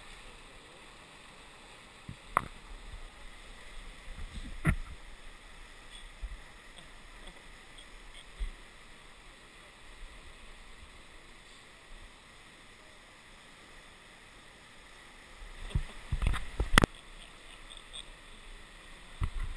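River rapids rushing steadily over rocks, with a few sharp knocks: two in the first five seconds and a cluster about sixteen to seventeen seconds in.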